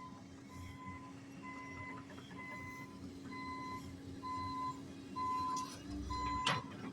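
Backup alarm on demolition equipment beeping steadily, one short single-pitched beep about every second, over a steady low engine hum.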